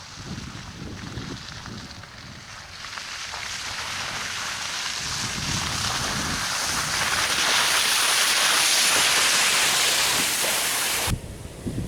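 A rushing noise that swells over several seconds and cuts off suddenly about eleven seconds in.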